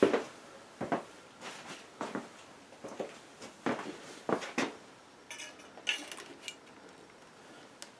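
Scattered light knocks and metallic clinks, about a dozen spread over several seconds, from metal parts and tools being handled around a cast-iron engine block.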